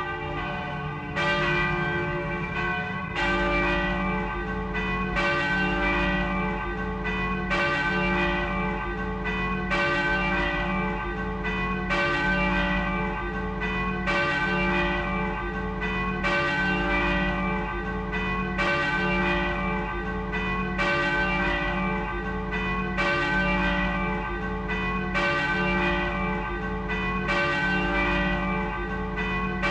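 Church bell tolling steadily, struck about once every two seconds, each stroke ringing on into the next over a continuous low hum.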